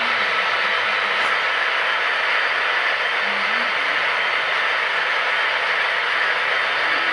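Steady rolling hiss of HO-scale model trains running on the layout's track.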